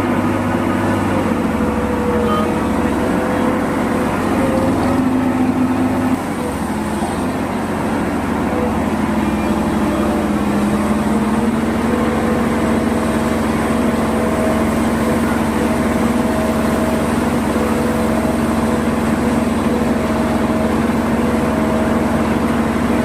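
Ajax Fiori self-loading concrete mixer's diesel engine running steadily and loudly while the drum unloads, with a slight drop in pitch and level about six seconds in.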